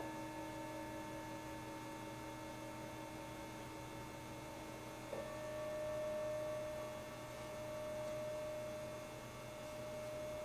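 Metal singing bowls ringing with long, steady tones. A new bowl of slightly higher pitch is struck about halfway through and rings on, its sound slowly swelling and fading.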